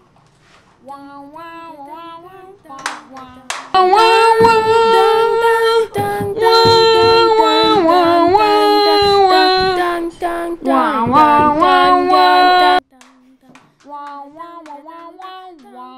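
A voice singing a tune with long held notes: soft at first, loud from about four seconds in, then breaking off abruptly a few seconds before the end, followed by quieter singing.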